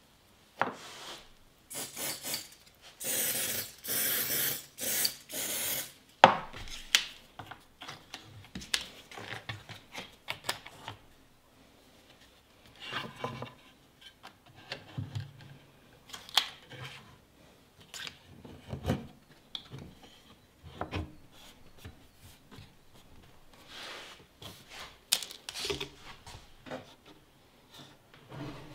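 Hand work on wood: a run of loud scraping, rasp-like strokes in the first six seconds, then scattered knocks and softer rubbing of wooden parts.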